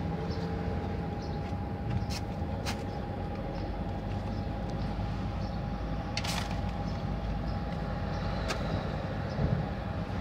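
Steady low rumble of urban background noise with a faint steady hum, broken by a few short sharp clicks.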